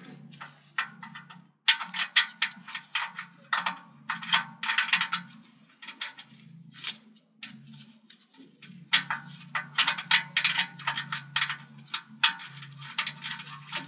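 Hand tap wrench turning an M12 x 1.25 thread tap in a steel exhaust sensor bung, re-cutting the threads. It makes bursts of rapid metallic clicking and scraping, each burst a second or two long, with short pauses between the turns.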